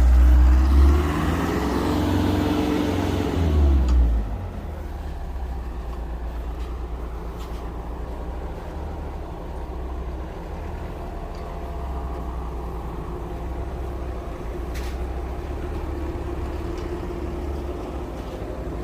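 Crane truck's engine revs up, holds raised revs for about three seconds, then drops back about four seconds in and idles steadily.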